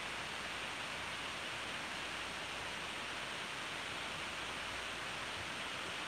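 Steady, even hiss with no distinct sounds standing out of it.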